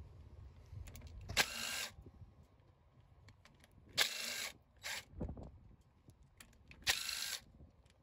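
Ratchet driving a socket on an extension, spinning out the cover-plate bolts on a Caterpillar 3306 mechanical fuel pump: three short ratcheting runs of about half a second each, roughly three seconds apart.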